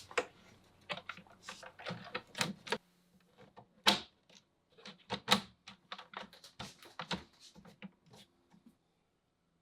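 Irregular clicks and knocks of hands plugging in and handling the light bars' daisy-chain cable and power connectors, loudest about four and five seconds in and stopping near the end.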